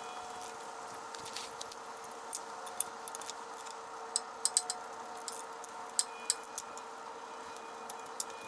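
Light metallic clicks of a wrench working the carburetor mounting nuts on a Briggs and Stratton generator engine: about ten sharp ticks at irregular intervals over a faint steady hum.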